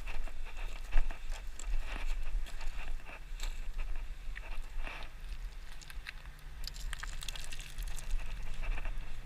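Footsteps scuffing and crunching on loose gravel and rock while climbing a steep slope, with wind rumbling on the microphone. A faint low drone comes in partway through and rises slightly in pitch near the end.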